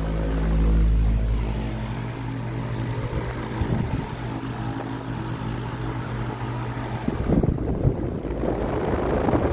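Fasco motor of a 1950s Fresh'nd Air 20-inch air circulator running with a steady hum. About seven seconds in, the fan's airflow starts buffeting the microphone in gusts.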